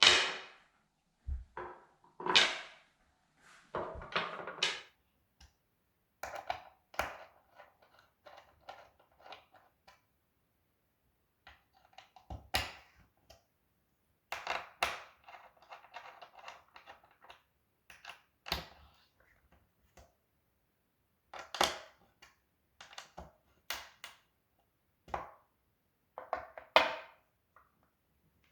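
Irregular knocks, thunks and short scrapes, as of wooden pieces being handled and set down, with silent gaps between them.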